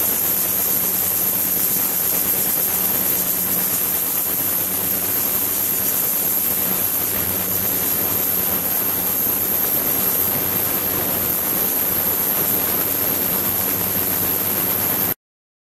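Ultrasonic tank running with its submerged transducer driving the water: a steady hiss from the agitated, circulating water, with a steady high-pitched whine above it and a faint low hum. It cuts off suddenly near the end.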